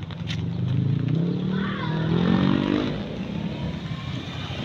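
A motor vehicle engine going by close, its pitch rising as it speeds up and then fading.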